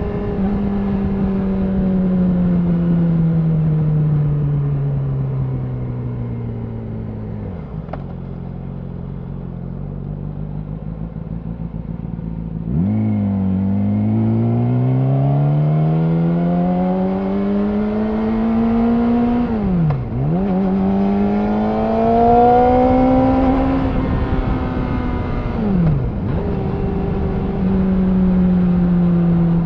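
Yamaha R6 inline-four engine through an Akrapovic slip-on exhaust, heard while riding. The revs fall steadily as the bike slows, run low for several seconds, then rise again under throttle. Near the middle and again near the end the pitch drops sharply and picks back up, the marks of gear changes.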